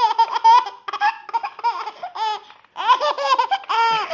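Baby girl laughing hard in runs of rapid, high-pitched bursts, breaking off briefly about two-thirds of the way through and then laughing again.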